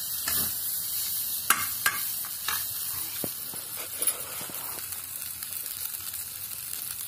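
Biryani rice frying in a metal wok, sizzling steadily, while a spatula stirs it, scraping and clicking against the pan. A few sharp clicks come in the first few seconds.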